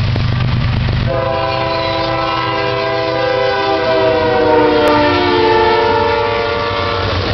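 Air horn of a CSX ES44DC diesel locomotive sounding one long chord, starting about a second in; its pitch drops as the locomotive passes, and it cuts off near the end. Underneath, the low rumble of the passing locomotives' diesel engines.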